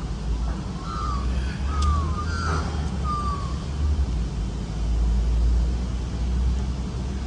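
A crow calling four times, short falling caws, over a low steady rumble, with a single sharp click among the calls.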